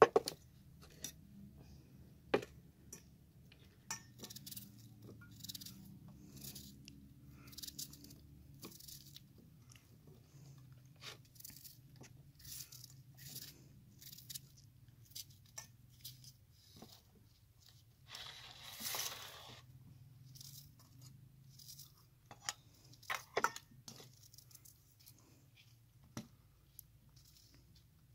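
Knife cutting a raw onion held in the hand: a string of short crisp cuts, with slices now and then landing in a steel bowl.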